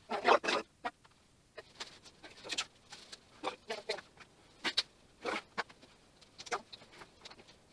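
Irregular short scrapes, squeaks and light knocks from hands and tools working on a frameless glass shower panel and its fittings, with a louder cluster of strokes near the start.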